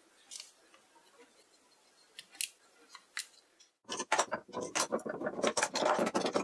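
A few faint clicks of small wooden pieces being handled. Then, about four seconds in, a busy run of rapid metallic clicking and rattling as steel bar clamps are slid and tightened onto a wooden glue-up.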